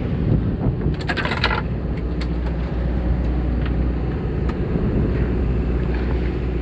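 Fishing boat's engine running with a steady low hum, wind and sea noise around it, and a short clatter about a second in.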